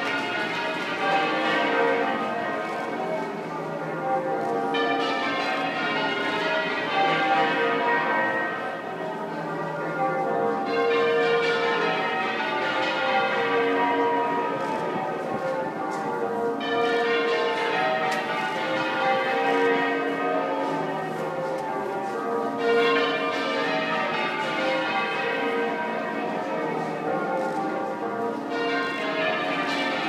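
The twelve bells of St Paul's Cathedral, cast by Taylor of Loughborough in 1878 with a tenor of about 62 cwt in B flat, change ringing half-muffled. The ringing turns bright and then dull in turn every five or six seconds, as open strokes alternate with muffled ones.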